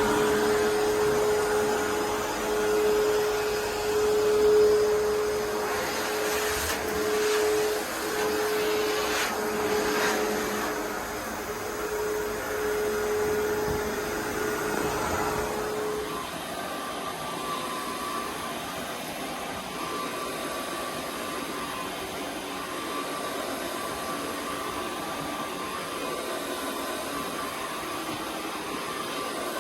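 Carpet cleaning vacuum running steadily with a strong suction hum. About halfway through, its pitch changes to a higher, quieter steady tone.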